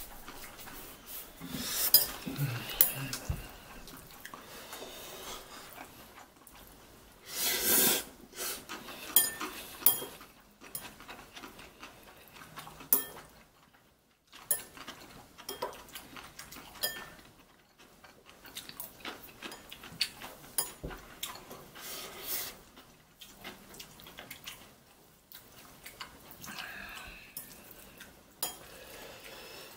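Metal chopsticks clicking and scraping against ceramic bowls while mixing sauced noodles, in irregular strokes. A longer, louder rustling burst comes about eight seconds in.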